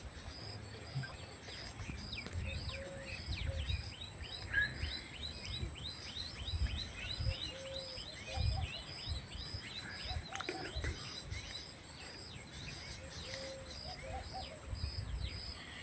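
Birds and insects chirping: a high chirp repeating steadily about two or three times a second, with a run of quick falling chirps in the middle, over an uneven low rumble.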